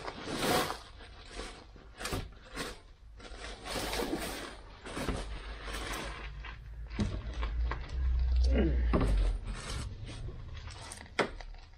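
Irregular scrapes, clicks and knocks of a socket tool and gloved hands working at the bolts of a car's plastic engine undertray, with a low rumble about eight to nine seconds in.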